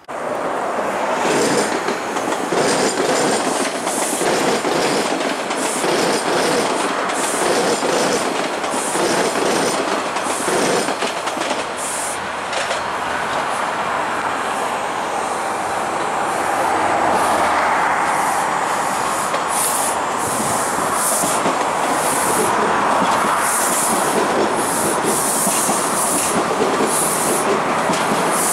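TTC T-1 subway train running along the track at close range, its wheels clacking over the rail joints in a steady rhythm.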